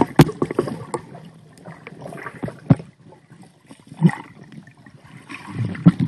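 Muffled underwater sound picked up by a submerged cell phone: water moving and a swimmer's air bubbles, broken by several short sharp knocks against the phone.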